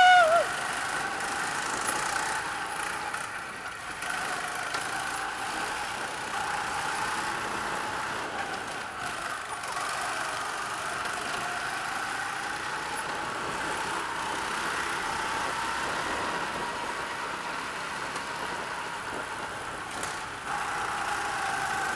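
Small Honda go-kart engine running under the driver, its pitch rising and falling slowly as the kart speeds up and slows through the corners. A short, loud squeal sounds right at the start.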